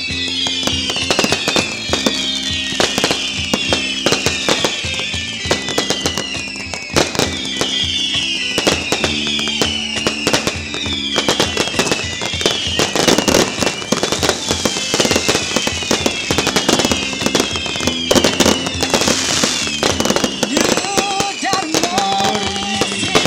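Fireworks going off in rapid crackles and bangs over background music with sustained low notes. High falling whistles repeat about once a second throughout, and a melody line comes in near the end.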